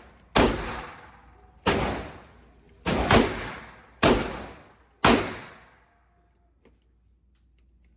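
Five gunshots fired about a second apart, each followed by a long echo that dies away; the firing stops about five seconds in.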